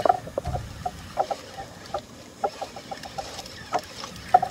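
Water lapping against the hull of a small outrigger boat, making irregular short, hollow plops.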